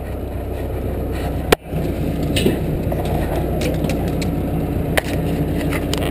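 Forklift engine running steadily with a low hum, with scattered rattles and clicks. A sharp click about a second and a half in, and the sound briefly drops out.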